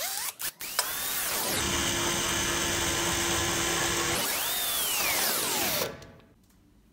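CMI cordless drill: a couple of short trigger blips, then the motor spins up about a second in and runs steadily with its bit pressed on a tempered glass panel. Its whine falls as it winds down to a stop near the end.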